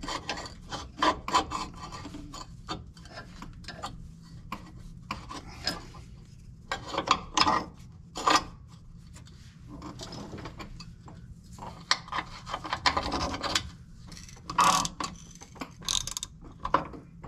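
Hand ratchet wrench clicking in short runs as fasteners on a new steering idler arm are run up, among clinks and scrapes of the steel parts being handled.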